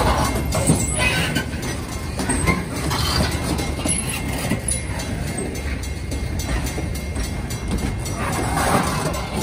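Loaded military flatcars of a freight train rolling past: a steady low rumble of wheels on rail, with scattered clicks as the wheels cross rail joints.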